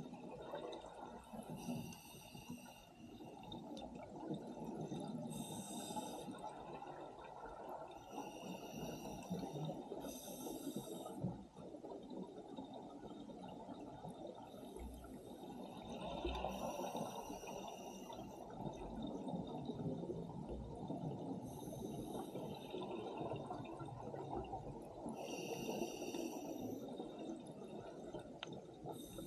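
Scuba diver breathing underwater through a regulator: a short hiss on each inhale every two to four seconds, with a continuous bubbling rumble of exhaled air.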